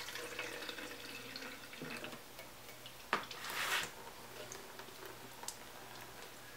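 Simple Green cleaner poured from a tin can into a small engine's plastic gas tank, a faint liquid trickle. About three seconds in there is a sharp click, then a short rush of liquid noise as the tank is handled, with a few faint ticks after.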